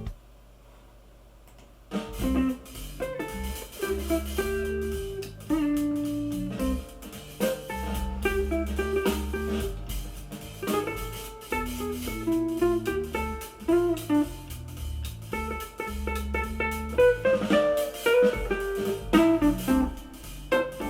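Guitar-led music with a deep bass line played through Edifier S2000 MkIII bookshelf speakers and picked up by a camera's built-in microphone. It starts about two seconds in, after a short quiet gap.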